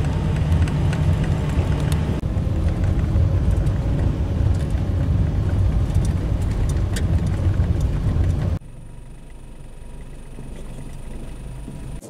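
Car driving, heard from inside the cabin: steady, loud engine and road rumble. About eight and a half seconds in it cuts off abruptly, leaving a much quieter steady background hum.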